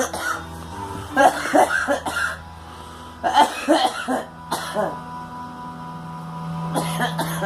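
A girl coughing in two fits of several short, harsh coughs, about a second in and again near the middle, over a steady background hum.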